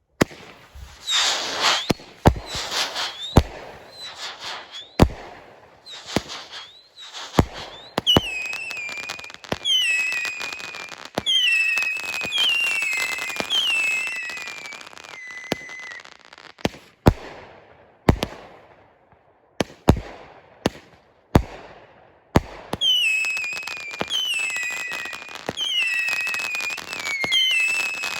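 T-Sky 'Problem Child' 200-gram firework cake firing: repeated launch shots with screaming and whistling effects and crackle. From about a third of the way in, a rapid string of whistles, each falling in pitch, dies out for a few seconds of single shots and starts again near the end.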